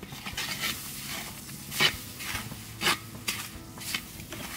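Metal spatula scraping and stirring sugar and sugar syrup around a pan, a string of short scrapes with two louder strokes about two and three seconds in, over a faint sizzle.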